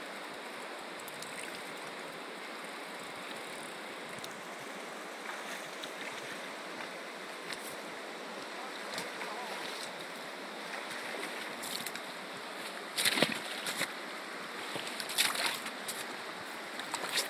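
Fast river water rushing over stones in a steady wash. Near the end, two brief louder bursts of noise break through it.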